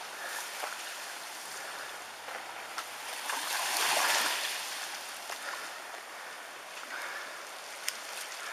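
Tsunami floodwater rushing and splashing through a narrow street, a steady rush that swells louder about four seconds in, with a few faint ticks.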